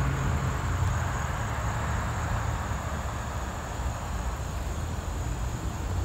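Steady outdoor background noise: a low rumble with a thin, steady high-pitched tone over it, and no distinct events.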